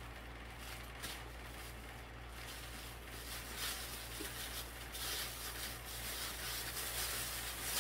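Plastic and paper wrapping crinkling and rustling as hands pull it off a book, picking up and growing louder about halfway through, over a steady low hum.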